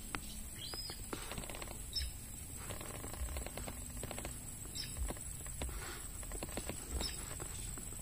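Outdoor ambience of scattered light taps and clicks, with a short chirp-like bird call about every two seconds and a steady high-pitched hiss.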